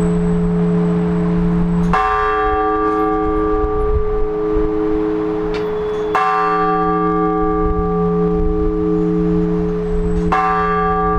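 Large church bell struck at a slow, even pace, one stroke about every four seconds (three strokes), each ringing on into a long wavering hum. This is blagovest, the measured single-bell ringing that calls to an Orthodox service.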